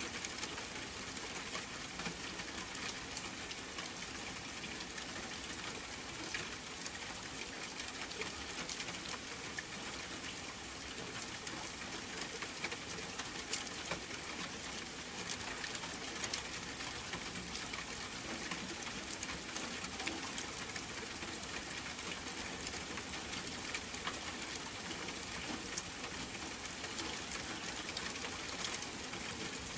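Steady rain falling, an even hiss with many single drops ticking sharply through it.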